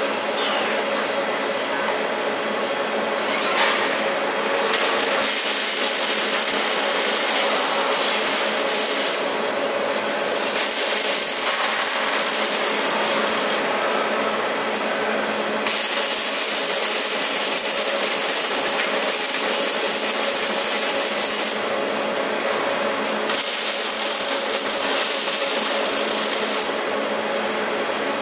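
Factory robot cell running: a steady machine hum with several fixed tones, broken four times by a hiss that switches on sharply, lasts three to six seconds and cuts off.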